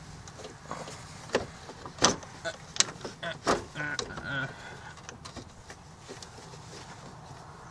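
A few sharp metal knocks and clanks, with a brief squeak about four seconds in, from hands and tools working on parts in a car's engine bay.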